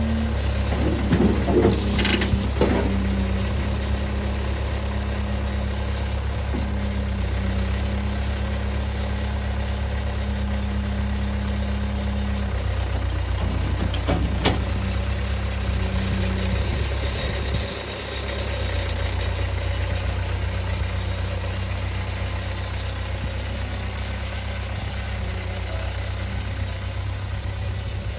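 Tractor engine running at a steady idle, with a few sharp knocks about two seconds in and again around fourteen seconds.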